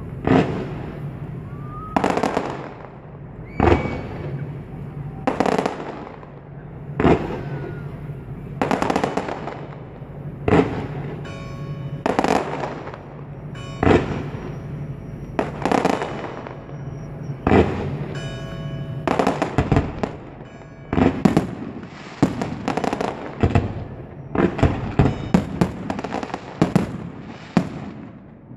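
Fireworks shells bursting overhead: a sharp bang about every second and a half to two seconds, each trailing off. In the last third the bursts come faster and closer together, with crackling between them.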